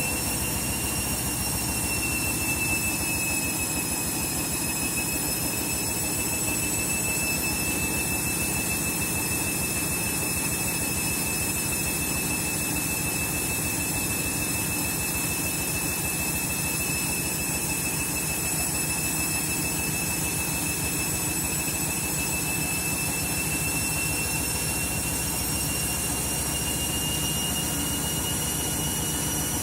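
Candy washing machine on a 1200 rpm final spin with bedding: the drum at speed with a steady high-pitched motor whine over a low rumble, the whine creeping slightly higher in pitch near the end.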